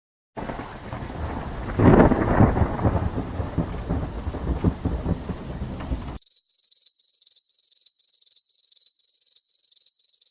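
Thunderstorm sound effect: steady rain with a rolling thunderclap about two seconds in, cutting off abruptly. It is followed by a high, even chirping about three times a second, typical of crickets.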